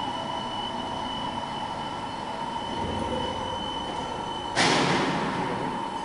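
Steady hum of running machinery around a large CNC turning center, with a steady high whine. About four and a half seconds in, a sudden loud burst of noise fades away over a second or so.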